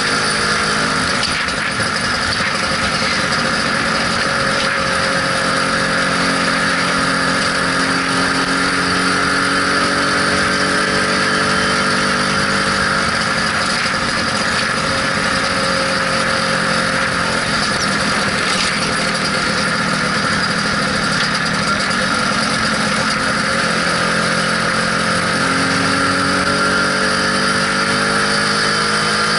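Lambretta SX 200 scooter's two-stroke single-cylinder engine running while cruising, its pitch easing and rising a little now and then with the throttle.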